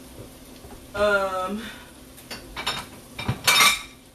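Kitchen utensils and dishes being handled: a few sharp clinks, then a louder clatter near the end. A brief vocal sound comes about a second in.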